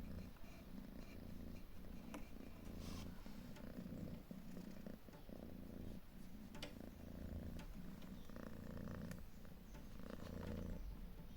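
A domestic cat purring steadily, in pulses that come a little under a second apart, with a few faint clicks.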